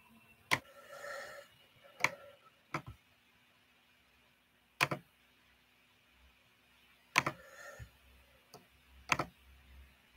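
Sharp single clicks at a computer, about seven of them spaced irregularly, as keys or mouse buttons are pressed.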